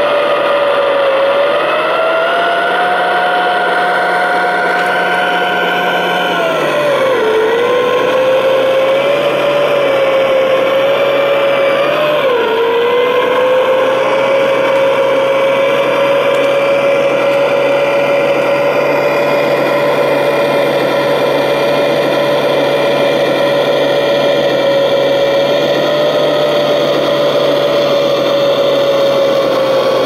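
Radio-controlled model tracked jaw crusher running on its electric motors and gearing: a steady whine over a noisy hiss. The pitch steps up a couple of seconds in, drops about seven seconds in, and dips briefly near twelve seconds as the model drives and steers.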